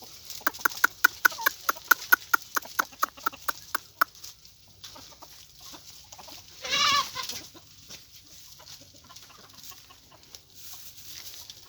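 Chickens clucking: a rapid run of clucks, about five a second, over the first four seconds. Then one louder wavering call about seven seconds in, and fainter scattered clucks after it.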